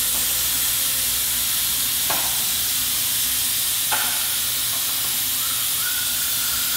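Air-powered vacuum brake bleeder hissing steadily as it sucks brake fluid and air out of a motorcycle's front caliper through the opened bleeder screw, with two light clicks about two and four seconds in.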